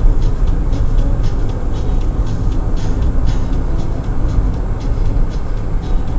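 Daihatsu Tanto kei car driving, heard from the cabin through a dashcam microphone: a steady low road and engine rumble with many short, irregular clicks and rattles.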